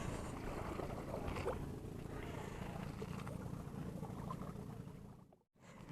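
Steady outdoor background noise with a few faint small knocks. It drops out to silence for a moment near the end.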